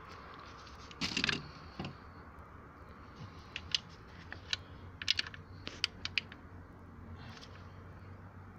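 Light clicks and taps of a hand tool and engine parts being handled on top of a car engine. A short cluster comes about a second in, then scattered sharp clicks between about three and six seconds.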